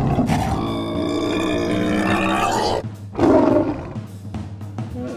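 Cartoon animal roar sound effects: a long roar for nearly three seconds, then a shorter one, over background music.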